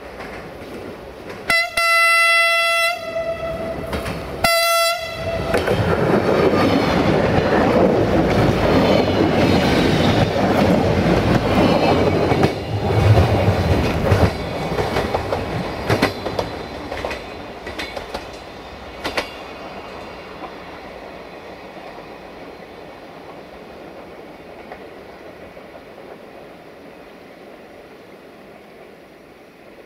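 A train sounds its horn twice, a longer single-note blast and then a short one. It passes close by with heavy running noise and the clickety-clack of wheels over rail joints, and the sound fades steadily away.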